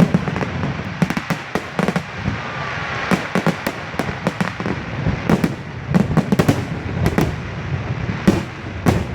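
Aerial fireworks bursting in rapid volleys: many sharp bangs and crackles, one after another.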